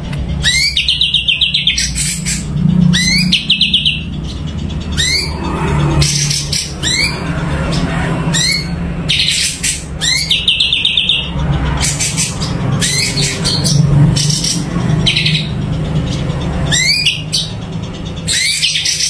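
Cucak cungko songbird calling repeatedly: sharp rising whistled notes every couple of seconds, several of them running into a fast trill, over a steady low hum.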